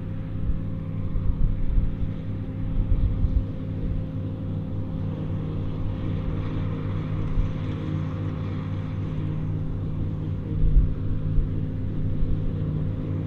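Ford TW-20 tractor's six-cylinder diesel running steadily under load as it drives a Taarup forage harvester chopping grass. A second tractor runs alongside, and the harvester's cutting and blowing noise sits over the engine drone.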